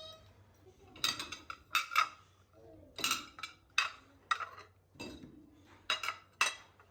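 Dishes and cutlery being handled and set down, with a dozen or so sharp clinks and knocks at irregular intervals, some with a brief ring.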